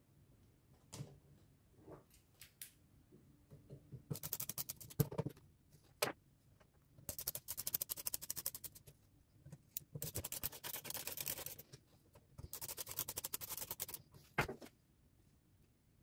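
A screwdriver drives the screws of an Olivetti Lettera 22 typewriter's bottom plate, in four bursts of rapid clicking. A few single knocks come before and after as the plate and screws are handled.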